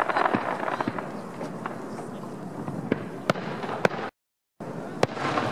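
Aerial fireworks going off: repeated sharp bangs of bursting shells over a continuous crackle, loudest in the first second, with single strong bangs a little after three seconds, near four seconds and at about five seconds. The sound cuts out completely for about half a second shortly after four seconds.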